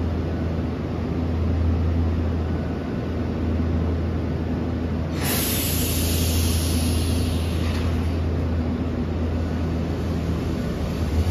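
Ichibata 2100 series electric train (ex-Keio 5000 series) standing at the platform, its onboard equipment giving a steady low hum. About five seconds in, a sudden hiss of compressed air bursts out and fades over a couple of seconds, typical of the air brakes releasing before the train pulls away.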